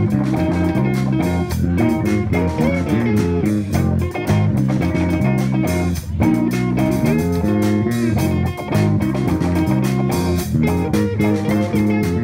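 Live instrumental funk-rock jam by a four-piece band: two electric guitars and an electric bass over a drum kit, playing steadily.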